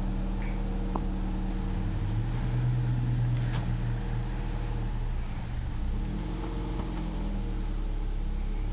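Car engine running at low revs, its note rising a little about two seconds in and settling back as the car is moved.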